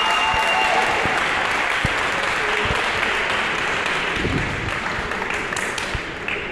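Crowd applauding and cheering, slowly dying down.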